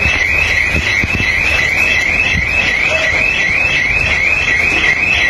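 An electronic alarm siren wailing in a steady repeating warble, about two cycles a second, over the low rumble of strong wind buffeting the microphone, with a few low thumps about a second in.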